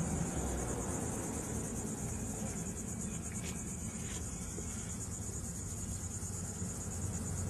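Insects trilling steadily in a high, rapidly pulsing chorus over a low background rumble, with two faint taps about halfway through.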